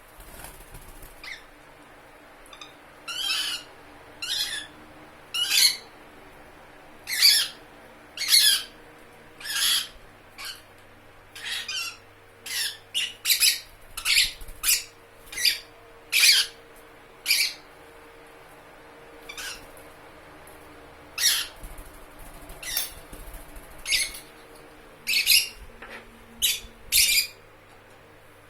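Lovebird making short, sharp, shrill squawks over and over, roughly one a second with brief pauses between runs.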